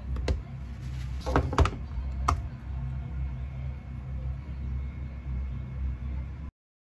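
A few short clicks and knocks as a plastic lunch box is handled and set down on a cloth bag, the loudest about a second and a half in, over a steady low hum. The sound cuts off abruptly near the end.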